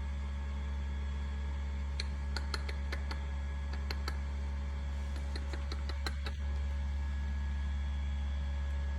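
A run of about a dozen sharp clicks and taps, irregularly spaced, from about two to six seconds in, over a steady low electrical hum.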